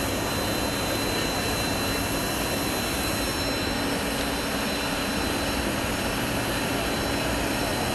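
Jet aircraft engine noise: a steady, even rush with a constant high whine.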